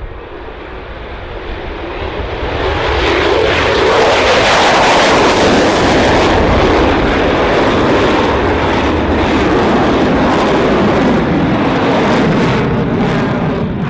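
Lockheed Martin F-22 Raptor's twin afterburning turbofans at full power on take-off and climb-out: a jet roar that builds over the first few seconds, then holds loud and steady with a crackle in it, dropping away near the end.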